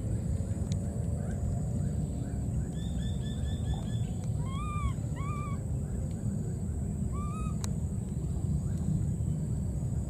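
A few short, arched, whistle-like animal calls over a steady low rumble. There is a quick run of about six chirps, then two single calls close together, another a couple of seconds later, and one sharp click.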